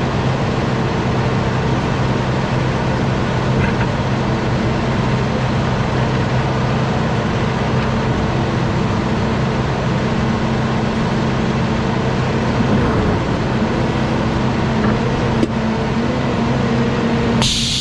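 Diesel engine of heavy equipment running steadily at an even speed, with a single sharp click about fifteen seconds in.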